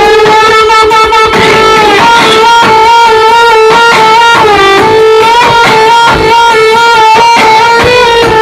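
Loud music on a large DJ sound system during a sound check: a sustained lead melody with sliding notes over a steady beat.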